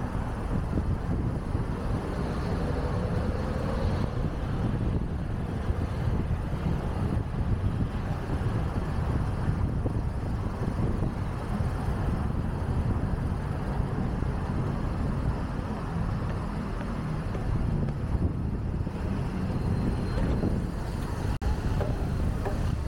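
Steady city street traffic, cars and buses passing, heard from a moving bicycle, with wind noise on the microphone.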